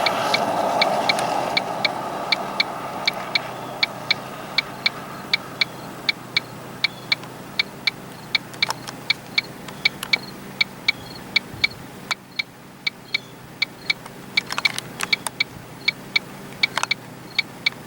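Car's hazard-light flasher ticking steadily, about three clicks a second, over a low hum inside the cabin. A few louder knocks come later on.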